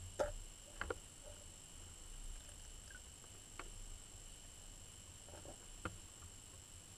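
Faint underwater sound picked up by a submerged camera: a steady high whine over low hiss, with a few short sharp clicks and knocks, the loudest right at the start and others about a second in, midway and near the end.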